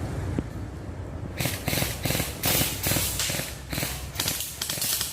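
Rustling and crunching of brush and dry leaves in quick, irregular bursts, starting about a second and a half in, over a low rumble of wind on the microphone.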